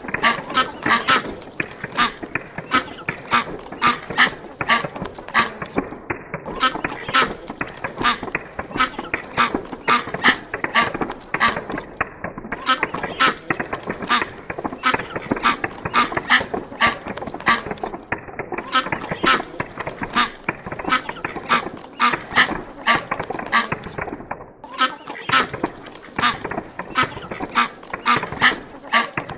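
Ducks quacking rapidly and continuously, many harsh calls overlapping. The same pattern repeats about every six seconds.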